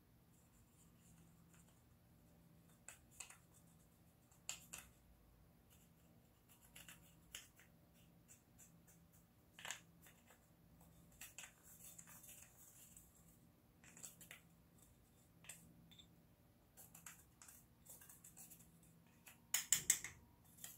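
Small plastic spoon scraping and tapping in a plastic compact of crushed eyeshadow: scattered faint clicks and scrapes, with a louder cluster near the end.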